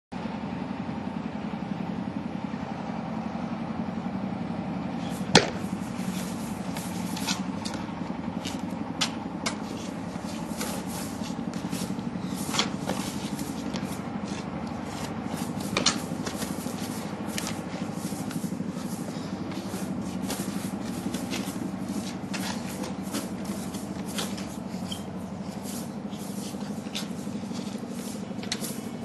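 A steady low hum with sharp snaps and slaps every second or two, from a martial artist's movements with a horsetail whisk; the loudest snap comes about five seconds in.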